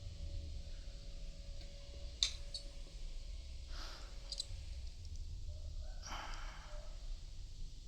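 A few light clicks and short rustles from handling the thin plastic-insulated wires of a Cat 6 cable as they are straightened and lined up, over a steady low hum.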